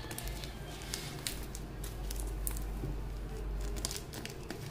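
Tape and paper being picked and peeled off the end of a cardboard mailing tube: irregular crackling and crinkling.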